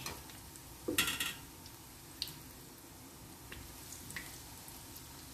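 Cheese balls deep-frying in hot oil, a steady sizzle, with a wire-mesh skimmer clinking and scraping against the wok a few times as they are moved about, loudest about a second in.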